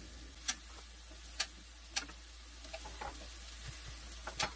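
A metal fork clinking against a stainless steel pan while stirring frying ground chicken: a few sharp taps about a second apart, the loudest near the end, over a low sizzle.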